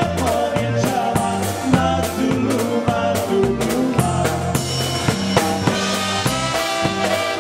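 Live polka band playing, with a drum kit keeping a steady, even beat under a bass line and melody. A saxophone comes in about halfway through.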